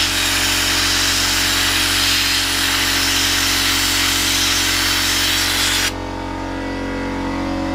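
Handheld air sandblasting gun blasting abrasive at a rusty steel motorcycle frame part, stripping the rust: a loud, steady hiss of compressed air and grit that cuts off suddenly about six seconds in.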